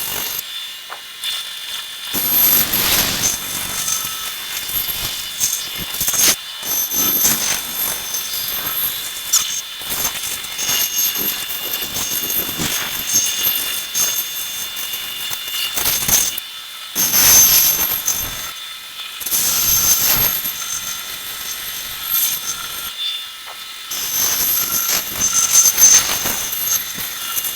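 Bandsaw running with a steady high whine, its blade cutting wood in repeated passes, so the cutting noise swells and falls back every few seconds.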